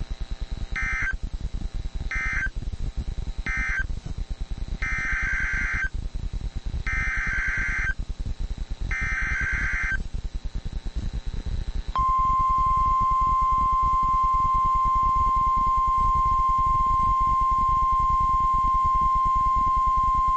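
NOAA Weather Radio SAME (Specific Area Message Encoding) data bursts: three short buzzy bursts of the end-of-message code, then three longer bursts carrying the next alert's header. A couple of seconds later the steady 1050 Hz weather-radio warning alarm tone sounds and holds for about nine seconds before cutting off.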